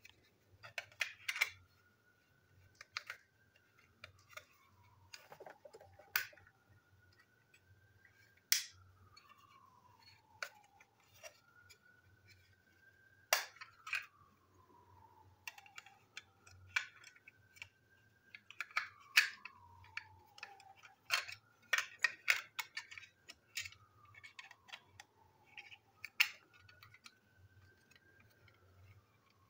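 Small plastic model-train parts clicking and tapping as they are handled, pulled apart and set down, in irregular clusters of sharp clicks. Behind them a faint tone slowly rises and then falls away, repeating about every five seconds.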